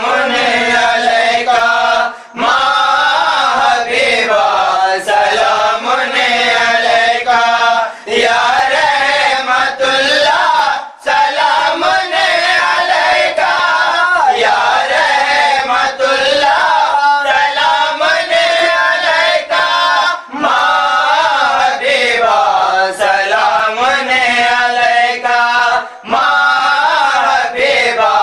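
Male voices chanting a devotional Islamic salam together, sung in phrases a few seconds long with short breaks between them.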